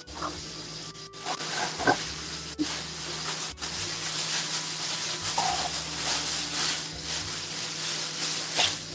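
Kitchen faucet running a steady stream of water into a bowl of water in a stainless steel sink.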